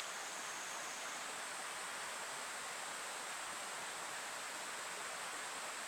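Steady, even outdoor background hiss with no distinct events in it.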